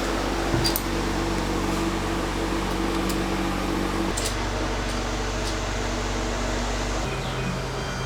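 A steady mechanical hum from a running motor. Its tone shifts about four seconds in and again near the end, and a few sharp clicks are heard over it.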